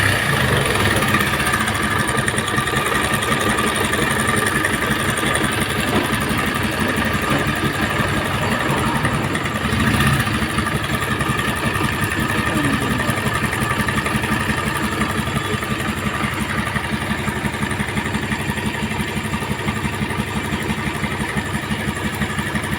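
Bajaj Pulsar 150 BS6 single-cylinder engine idling with a steady, fast mechanical clatter, a very bad noise that the mechanic puts down to a worn timing chain.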